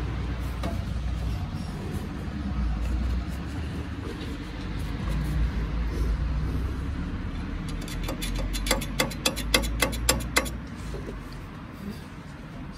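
Stick-welding arc crackling in a quick run of sharp snaps for about three seconds, near the end, as the electrode is struck and burns at the joint of the steel table. A low steady rumble sits under it throughout.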